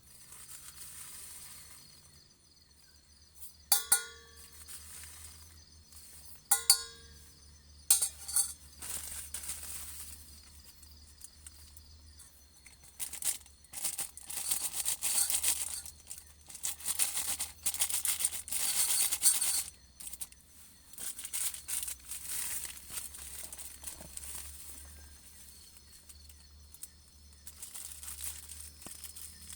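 Two short ringing clinks a few seconds apart, then a long stretch of rustling and crinkling with many scattered clicks, like camp gear or packaging being handled.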